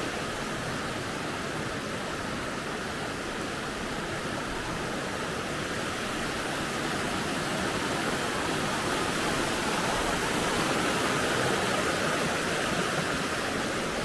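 Shallow mountain river rushing over stones: a steady rush of water that grows a little louder in the second half.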